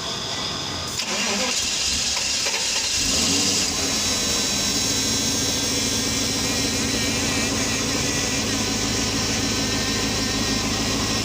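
Mercedes S500 V8 being cranked on the starter, catching after a couple of seconds and settling into a steady idle.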